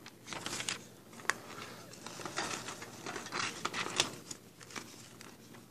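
Irregular rustling and crinkling of paper or plastic being handled, with a few sharp clicks, the clearest about a second in and again about four seconds in.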